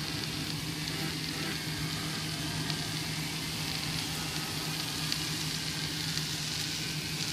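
Steady hiss of heavy rain, with a steady low hum of an idling vehicle engine underneath.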